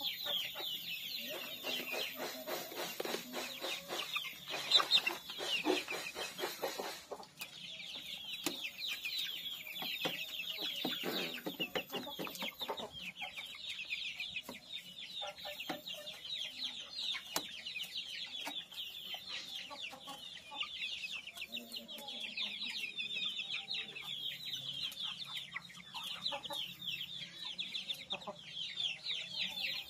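Young kampung chickens calling constantly in high, rapid, falling peeps, with lower clucking mixed in during the first several seconds and again around ten to twelve seconds in.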